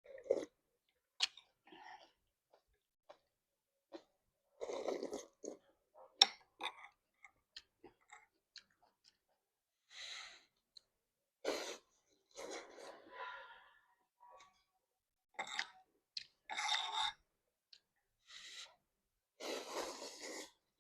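Close-miked eating of instant noodles with squid: slurps and chewing in irregular bursts, with small sharp mouth clicks in between.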